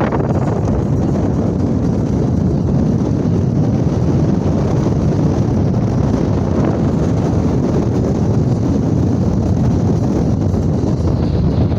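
Wind buffeting the microphone: a steady, dense, low rumble with no pitch and no breaks.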